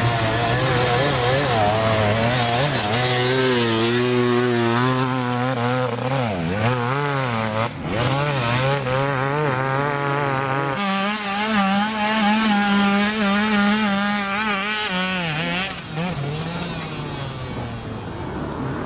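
Enduro motorcycle engines revving hard and unevenly under load on a steep dirt hill climb, the pitch wavering up and down with the throttle. About eleven seconds in, the engine note jumps higher.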